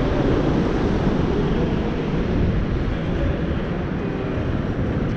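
Wind buffeting the microphone outdoors, a steady rushing rumble with no distinct knocks or tones.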